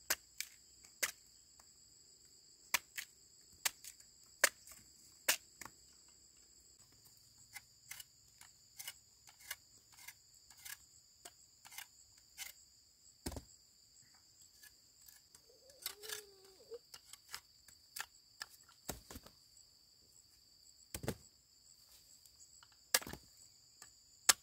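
Insects chirring steadily in two high, unbroken bands, with irregular sharp clicks and pops, roughly one or two a second, and a few louder cracks about 13, 19, 21 and 23 seconds in.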